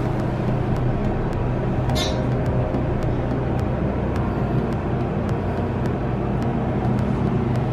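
Elevator car in motion: a steady low hum and rumble, with a brief rustle about two seconds in.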